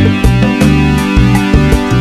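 Background electronic music with synthesizer and a heavy bass line over a steady beat.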